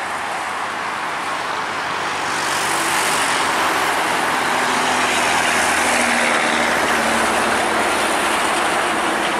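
McDonnell Douglas MD-11F trijet's three turbofan engines at takeoff thrust through the takeoff roll and rotation: a loud, steady jet roar that swells about two seconds in and stays high.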